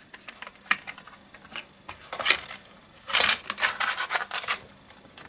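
A paper booklet being slid out from under the plastic clips of a DVD case: small clicks and ticks of hands on the plastic case, then louder rustling and scraping of paper against plastic from about three seconds in.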